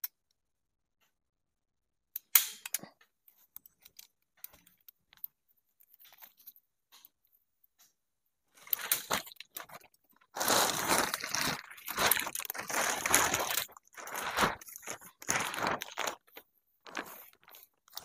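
Plastic tarp rustling and crinkling in repeated bursts as it is folded and pulled into place, with a sharp knock about two seconds in.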